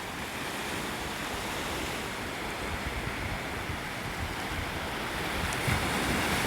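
Ocean surf washing in at the water's edge, a steady rush that swells louder near the end.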